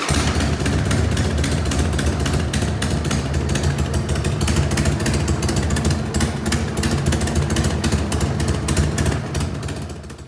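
Harley-Davidson Sportster XL1200C's air-cooled 1200 cc V-twin idling steadily with a rapid, even firing pulse, fading out near the end.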